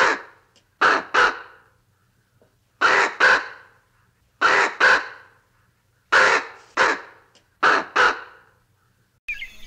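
Raven giving short, harsh croaking calls, mostly in quick pairs, about five pairs spaced a second or two apart.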